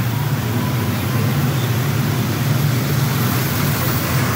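Tractor-trailer truck driving past close by: steady low engine sound with road noise.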